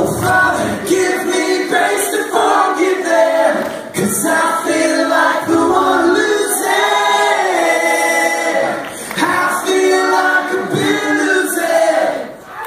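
Many voices singing the melody together a cappella, a concert crowd singing along with the instruments dropped out. The singing dips briefly just before the end.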